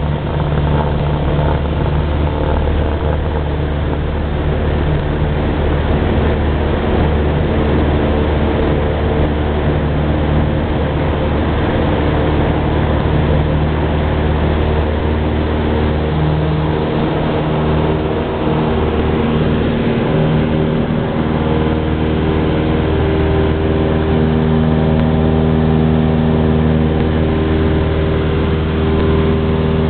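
Cessna 172's single piston engine and propeller running at takeoff power, heard from inside the cabin: a loud, steady drone through the takeoff roll and into the climb-out.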